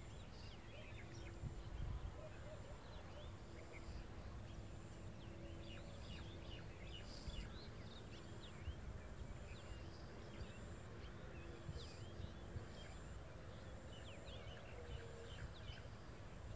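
Small birds chirping in quick short notes over a low wind rumble on the microphone.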